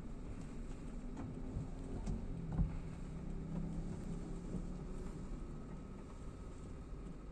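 Automatic car wash working over a car, heard muffled from inside the cabin: a steady low rumble with a hum that comes up in the middle, and a few dull knocks in the first few seconds.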